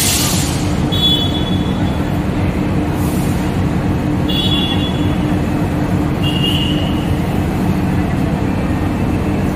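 Busy railway station concourse ambience: a steady low mechanical hum under the general noise of a crowd on the move. A few short high-pitched tones come through, about a second in, around four seconds and around six seconds.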